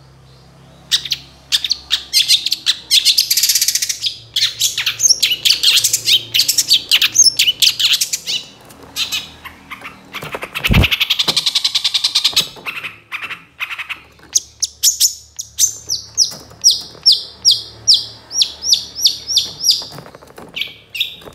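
Long-tailed shrike (cendet) singing: about twelve seconds of a loud, rapid chattering song of varied notes, then a regular run of short, sharp, falling notes at about three a second.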